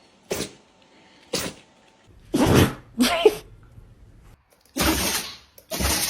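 Dogs sneezing: six sharp sneezes in a row, the first two short and the later four longer and louder.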